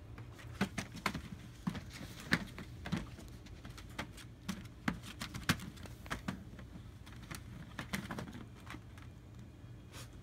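Irregular light clicks and taps of German Shepherd puppies' claws and paws scrabbling on a hard plastic kiddie pool as they play. A low steady hum runs underneath.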